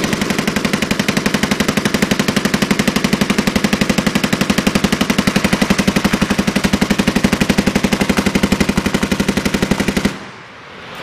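Machine gun firing one long, unbroken burst of rapid, evenly spaced shots that cuts off suddenly near the end.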